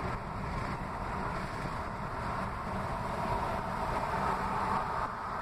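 Steady road and wind noise inside a moving car.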